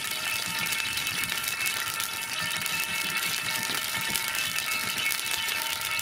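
Steady fine crackling and sizzling of oil heating in an iron kadai over a wood fire.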